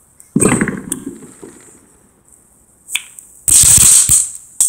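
Consumer firework going off in loud bursts of crackling: one burst about a third of a second in that fades over about a second, a small pop around three seconds, a second loud burst just after, and a sharp crack near the end.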